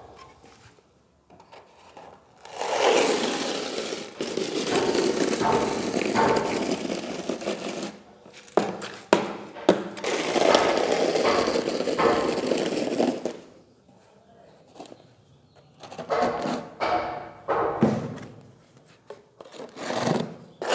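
A 10 mm notched trowel scraping through a bed of tile adhesive on a concrete floor, combing it into ridges and pulling off the excess. Two long rasping strokes of several seconds each, a few sharp clicks of the trowel, then several shorter strokes near the end.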